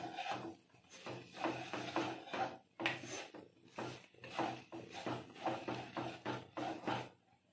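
Plastic slotted spatula scraping and stirring a thick milk-powder and milk paste around a nonstick pan, in quick repeated strokes.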